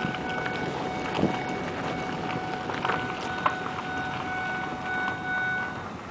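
Steady machinery and vehicle rumble with wind noise. Over it runs a steady high-pitched whine for about six seconds, and a few sharp knocks come in the first half.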